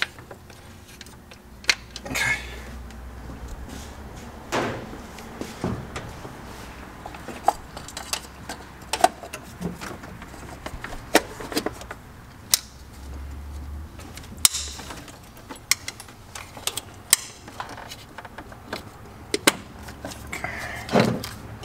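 Scattered plastic clicks, taps and clatter of a distributor rotor and cap being pressed back into place on a points-ignition distributor, with rubber spark plug wires being handled.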